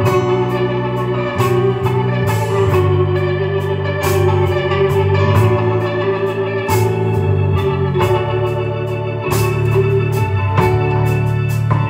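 Live rock band in an instrumental passage led by Hammond organ playing sustained chords, over bass and a steady drum beat with cymbal hits.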